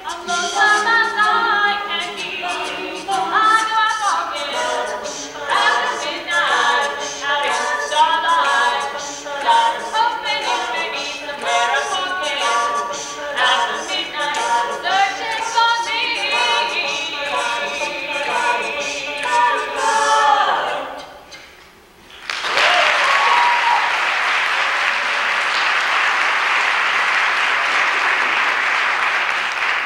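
A cappella group of men and women singing, with a woman leading over the others' backing voices. The song ends a little past two-thirds of the way through, and after a short pause an audience breaks into steady applause that runs on.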